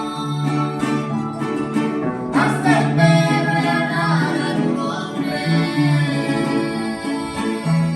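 Music: a voice singing held, gliding notes over a plucked guitar accompaniment.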